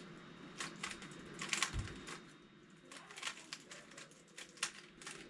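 A 3x3 Rubik's cube being turned fast in a speedsolve: an irregular run of quick plastic clicks and clacks, with a soft low bump about two seconds in.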